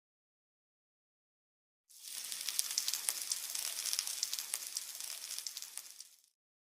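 Silence for about two seconds, then food sizzling in hot oil in a pan, with sharp crackles and pops. The sizzling fades out near the end.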